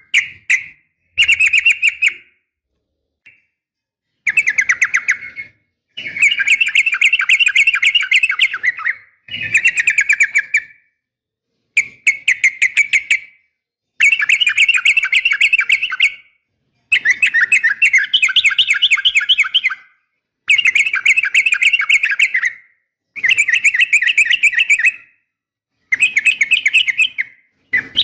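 Yellow-vented bulbul (trucukan) calling in a string of quick chattering phrases, each one to three seconds long, with short pauses between; this is the call of a female summoning a male, used as a lure to set caged males singing.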